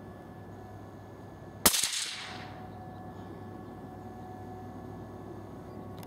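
A single gunshot: one sharp crack about a second and a half in, trailing off over about half a second.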